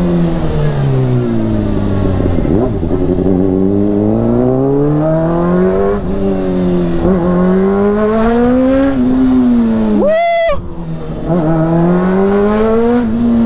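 Honda CBR600RR's inline-four engine through a Yoshimura exhaust while riding, its pitch climbing and falling as the bike accelerates and changes gear. About ten seconds in the revs spike sharply, then the sound dips briefly before climbing again.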